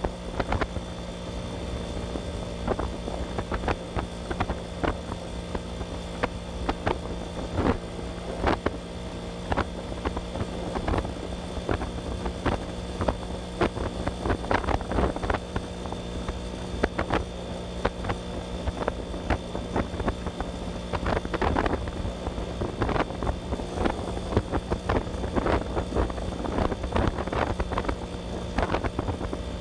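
Kawasaki HD3 125cc two-stroke single-cylinder motorcycle engine running at a steady cruising pace, heard from the rider's seat, with frequent irregular gusts of wind buffeting the microphone.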